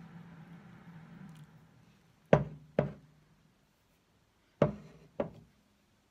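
A thin stream of egg custard trickles from a pitcher into a pie crust and fades out within the first two seconds. Then come four sharp knocks on a hard surface, in two pairs about two seconds apart.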